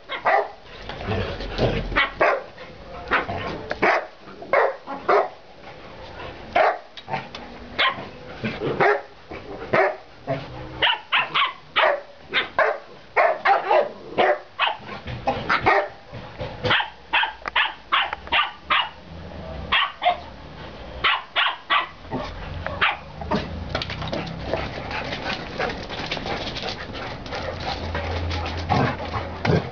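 Dogs barking during rough play: a long run of short, sharp barks, about one to two a second, coming thickest around the middle.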